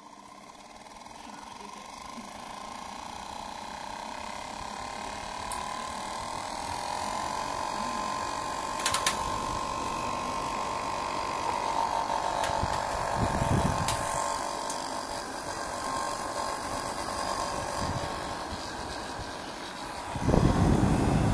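Small DC motor spinning the directly mounted 3D-printed PLA rotor of an Eppendorf-tube centrifuge, a steady whine that builds up over the first several seconds as it spins up and then holds. A sharp click about nine seconds in, and a loud low rumble of handling near the end.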